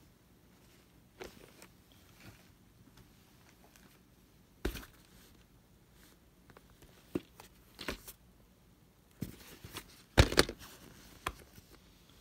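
Handling noise from a plastic VHS clamshell case being held and turned over: scattered clicks and light knocks, with a louder cluster about ten seconds in as the case is flipped to show the back.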